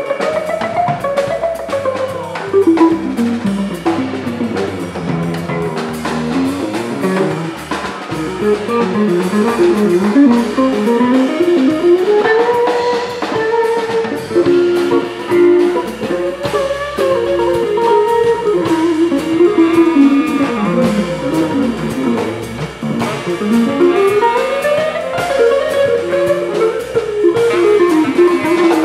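Live jazz band playing an instrumental passage: winding electric guitar lines over electric bass and a drum kit, with saxophone in the band.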